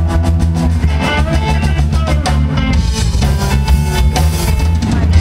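Live blues band playing an instrumental passage: electric guitar, electric bass and drum kit in a steady beat, with a harmonica player.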